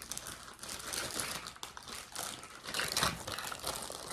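Plastic packaging crinkling and rustling in irregular crackles as a play-dough tea party set is handled, with a louder burst of crackling about three seconds in.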